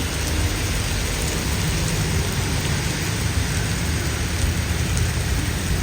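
Heavy rain falling steadily, an even hiss with a deep low rumble underneath and scattered drop ticks.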